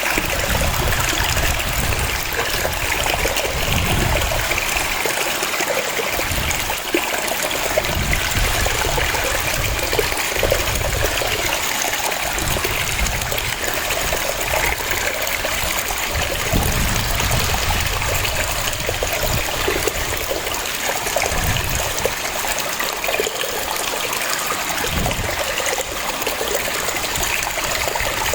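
Waterfall, water cascading in a steady rush with splashing, over an uneven low rumble that swells and fades every second or two.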